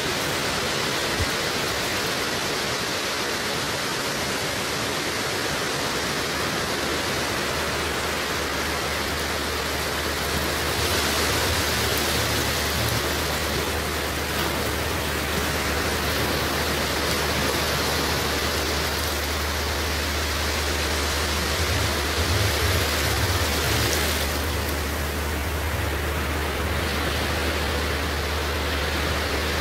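A steady rushing noise spread evenly from low to high, with a low steady hum joining about seven seconds in.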